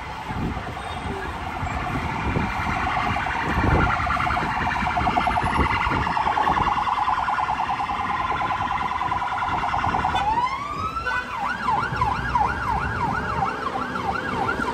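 Emergency vehicle siren sounding with a rapid warble, switching about ten seconds in to a slower sweep that rises and falls about three times a second.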